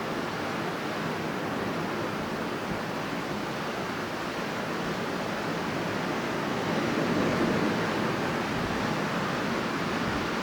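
Strong wind blowing in a continuous rushing noise, swelling slightly about two-thirds of the way through.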